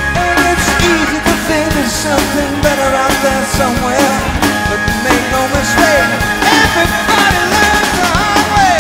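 Live rock band playing an instrumental passage: drums, strummed guitars and a lead electric guitar line that bends and wavers in pitch.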